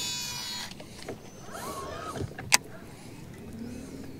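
Casting reel spool whirring as line pays out on a cast with a big swimbait, the pitch falling as the spool slows until it stops under a second in. A single sharp click comes about two and a half seconds in, and a low steady hum starts near the end.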